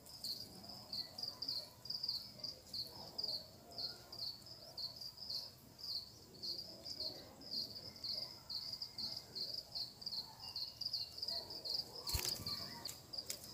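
An insect chirping steadily at a high pitch, about two to three chirps a second without a break. A single sharp knock sounds about twelve seconds in.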